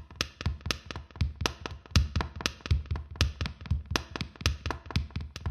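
Sparse rhythmic percussion: sharp clicks, each with a soft low thud, about four a second.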